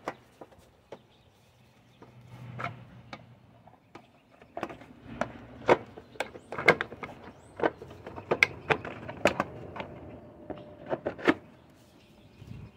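Irregular sharp clicks and knocks of parts being handled on a Honda HR215 lawnmower's engine. They start about four seconds in and stop shortly before the end.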